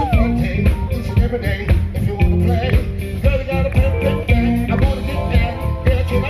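Live band playing an up-tempo groove: a drum kit keeping a steady beat under a heavy bass line, with guitar and keyboards.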